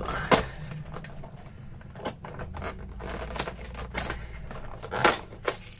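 Fingers and fingernails tapping and scraping on a cardboard advent calendar, picking at a perforated door to open it: scattered light clicks and scrapes.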